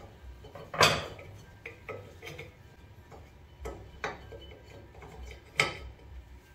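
Metal hand tools and brake parts clinking and knocking against a rusty drum-brake backing plate as the old wheel cylinder and brake hardware are worked loose. A sharp clank about a second in is the loudest, with a few lighter knocks and ticks after it and another clank near the end.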